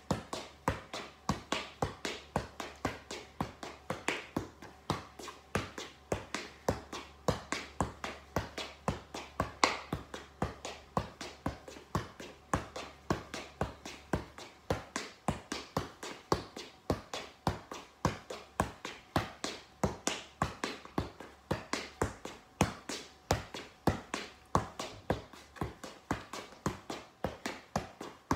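A football being juggled, the ball kicked up again and again in a steady rhythm of about three touches a second.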